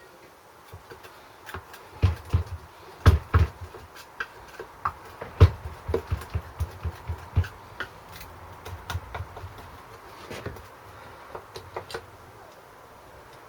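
Irregular knocks and clicks of hard parts being worked by hand as a stuck carburettor is tugged and rocked on a small engine, which will not come off. The knocks are thick in the first half and grow sparse later.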